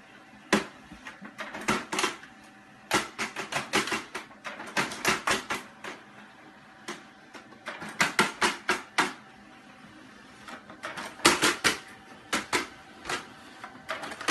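Multifunction printer running with a faint steady hum, broken by repeated bursts of rapid clicking and paper rustling as a cat paws at the pages feeding out.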